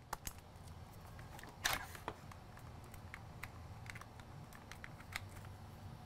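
Faint clicks and light clacks of a wall charger, USB power meter and charging cable being handled and plugged together, with one louder clack about a second and a half in. A steady low hum runs underneath.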